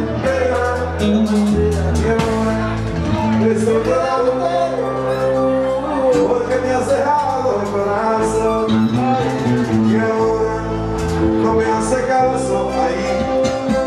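Live Latin band music: a male lead singer over acoustic guitar, keyboard, a steady bass line and hand-drum percussion.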